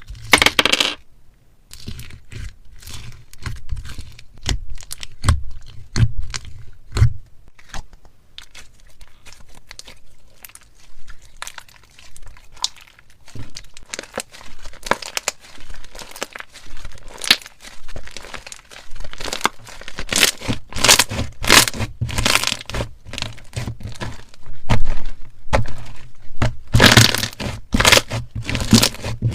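Metallic slime mixed with ice being squeezed and worked by hand: dense, irregular clicking, popping and crackling, getting busier and louder in the last third.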